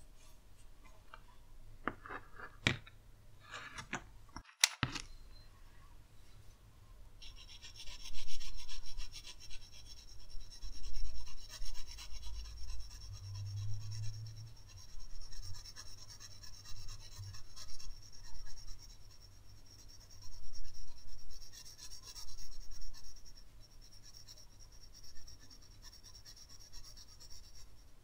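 Faber-Castell Grip 2001 graphite pencil scratching across paper in shading strokes, coming in bursts of a second or two. A few sharp clicks and taps are heard in the first five seconds as tools are handled.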